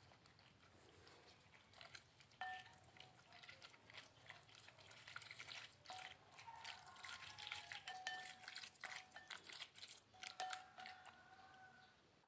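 Chopsticks mixing sliced beef in its marinade in a cut-glass bowl: faint, irregular clicks of the chopsticks against the glass, some making the bowl ring briefly. The mixing starts about two seconds in and stops about a second before the end.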